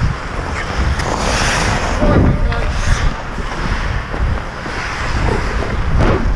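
Wind rushing over a helmet-mounted action camera's microphone while skating, with the hiss and scrape of skate blades on the ice.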